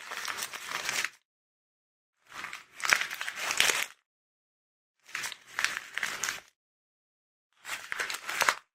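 Sheets of packing paper being folded and crinkled in four separate handlings, each about a second to a second and a half of crackling, with silence between.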